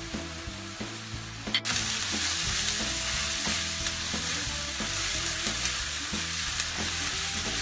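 Diced onions and peppers sizzling as they fry in oil in a frying pan, stirred with a wooden spoon, the onions nearly browned. A sharp click comes about a second and a half in, and the sizzle is louder after it.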